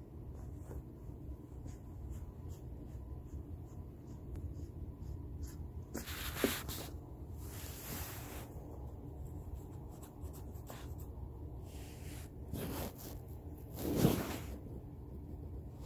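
Soft rustling and rubbing as a hand strokes sleeping bloodhound puppies' fur on a blanket: several short swishes, the loudest about 14 seconds in, over a steady low hum.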